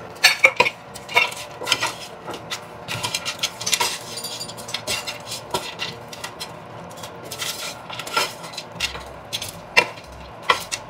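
A cooking utensil scraping and clanking against a frying pan in quick, irregular strokes while stir-frying.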